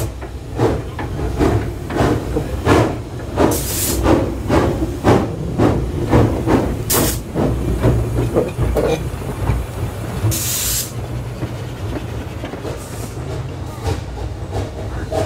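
Jones & Laughlin narrow-gauge steam switcher No. 58 working, its exhaust chuffing at about two and a half beats a second, broken by several short, loud hisses of steam. The chuffing fades out about nine seconds in, leaving a low rumble.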